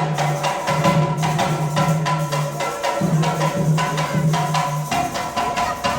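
Tharu folk dance music: a rhythm of sharp wooden clacks, a few per second, with drumming and a sustained low tone that breaks off briefly three times.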